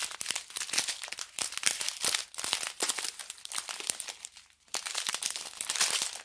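Clear plastic zip-lock bags of diamond painting drills crinkling as they are handled, with a brief pause a little after four seconds.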